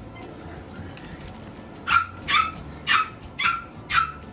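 Yorkshire terrier puppy barking: five short, high-pitched yaps starting about two seconds in, about two a second.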